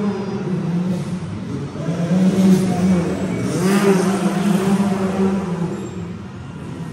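Off-road racing vehicle engine running hard and revving up and down, its pitch rising and falling. A short hiss of noise comes about halfway through.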